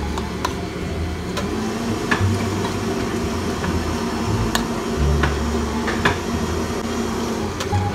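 Metal spoon clinking and scraping against a cooking pot while stirring noodles in water, with a scattered series of sharp clinks, over a steady low machine hum.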